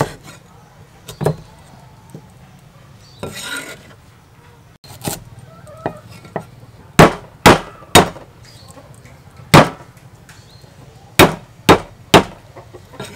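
Kitchen knife and cleaver striking a thick round wooden chopping block while cutting a root, ginger or galangal. The knocks come one at a time, spaced out at first, then loud and quicker: three close together, one more, then three again near the end.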